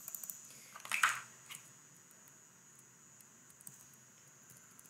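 Faint computer keyboard clicks in a few short runs as caption text is deleted and retyped, with one louder click about a second in.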